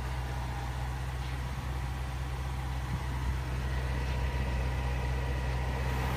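2016 Range Rover Sport SVR's 5.0-litre supercharged V8 idling steadily.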